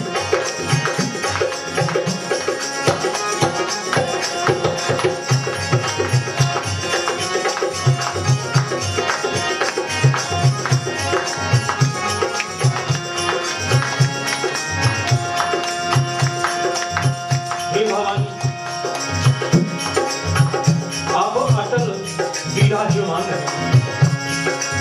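Devotional kirtan music: hand drums beat a steady, fast rhythm under held melody tones, with jingling percussion. A voice comes in near the end.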